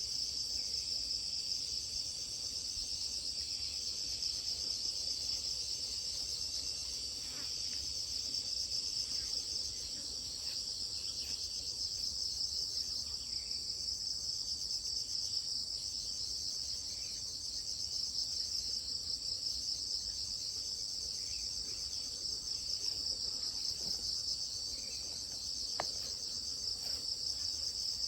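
A dense, unbroken chorus of insects trilling at a high pitch, steady in level, with a couple of faint ticks.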